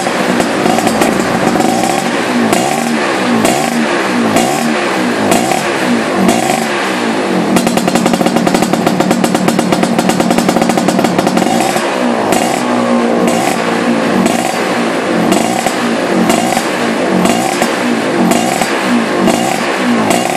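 Tuned racing Vespa scooter engine, running on a racing CDI wired to a single ignition coil, being revved again and again, rising and falling. About a third of the way in it is held at high revs for a few seconds, then it goes back to repeated blips.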